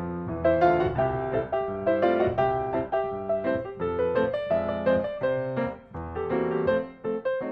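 Background piano music, a steady run of struck notes over held bass chords.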